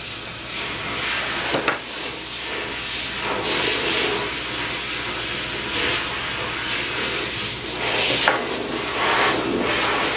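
Grooming shears snipping a dog's face hair, one sharp snip a little under two seconds in and another about eight seconds in, with brush strokes swishing through the coat, over a steady hiss.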